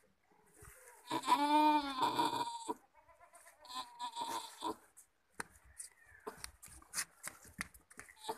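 A doe goat in labour bleating once, a loud call about a second long that rises and falls in pitch, starting about a second in. Fainter short clicks and rustles follow in the second half.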